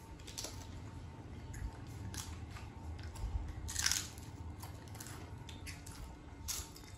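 Potato chips crunching as two children bite and chew them: scattered dry crunches, loudest about four seconds in.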